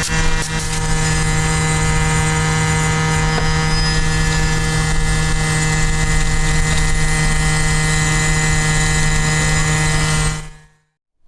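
Small 5-gallon air compressor running steadily, a constant motor hum over a hiss. It cuts off abruptly near the end.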